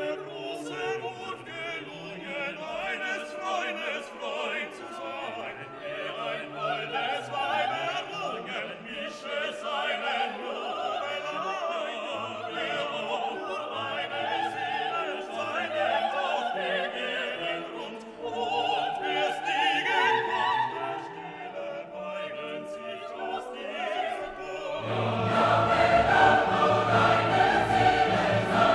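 Background classical music with choir and orchestra, in an operatic style. It grows louder and fuller, with a deep bass part, near the end.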